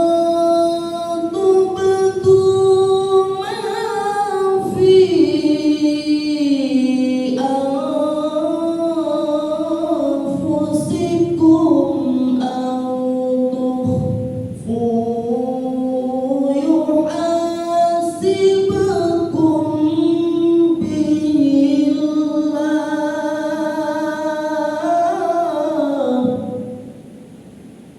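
Solo Quran recitation in melodic tilawah style: a qari's long, ornamented, melismatic phrases that slide up and down in pitch. The voice stops about 26 seconds in.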